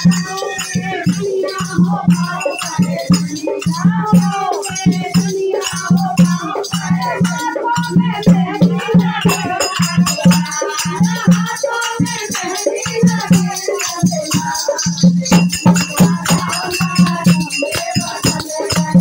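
Group of women singing a Hindi devotional bhajan together, with a dholak drum beating a steady rhythm under the voices and jingling hand percussion and clapping on top.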